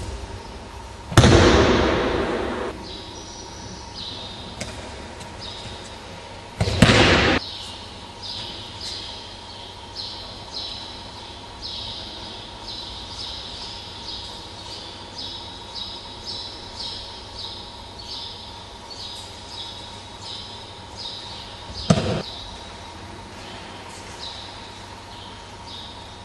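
Aikido breakfalls: a partner's body and arm slapping down onto the tatami mat three times, about a second in (the loudest), around seven seconds in and near twenty-two seconds, each echoing in a large sports hall. Between the falls, a run of short high-pitched chirps or scuffs about once a second.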